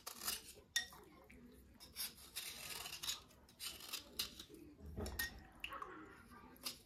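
Kitchen knife blade scraping along a slate pencil, shaving off its outer layer in a series of short scraping strokes, with one sharp click about three-quarters of a second in.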